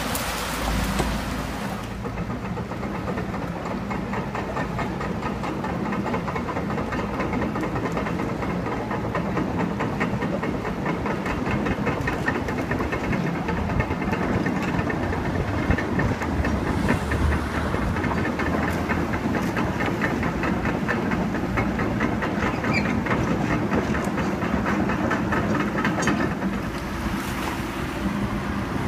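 Hitachi tracked excavator's diesel engine running steadily, with a fast, even clatter through most of the stretch, over the rush of flowing river water.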